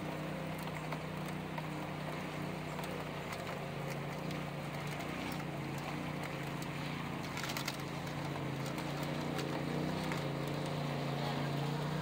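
Side-by-side UTV engine idling steadily, with rain pattering on and around the machine. The engine noise swells slightly near the end as other side-by-sides drive up the trail.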